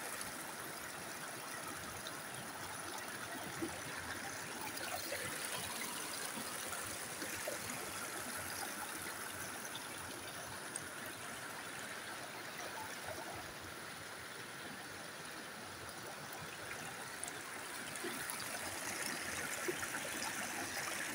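Rocky creek flowing over boulders and stones: a steady rush and trickle of running water.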